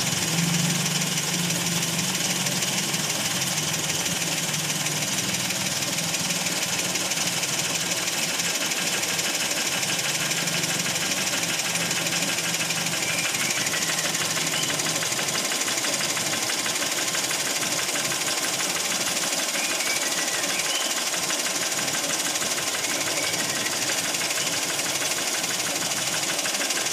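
Daihatsu Ayla engine idling steadily under the open bonnet while its charging system is tested; this engine ran short of oil.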